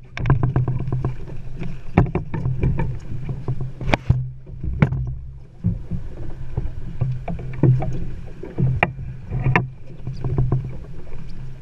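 Small boat's motor running with a steady low hum, under frequent sharp knocks and clatter on the boat as a fishing rod is worked at the bow.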